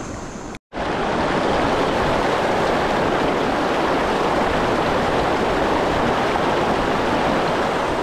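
A steady rush of flowing river water. The sound drops out briefly just under a second in, then carries on evenly.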